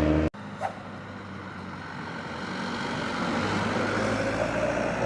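A heavy road vehicle approaching, its engine and tyre noise building steadily louder after an abrupt cut just after the start. A steady whining tone comes up near the end.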